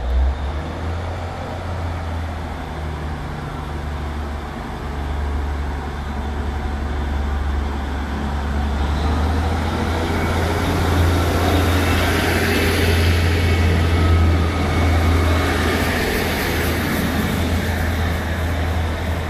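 Northern Class 150 diesel multiple unit pulling out of the platform: its underfloor diesel engines run with a steady deep hum. About nine seconds in, the noise grows louder and brighter as the train passes close by, with wheel and rail noise.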